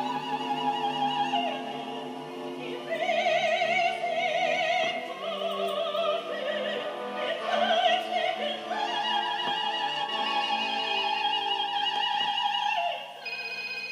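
Operatic soprano singing long held notes with wide vibrato over instrumental accompaniment.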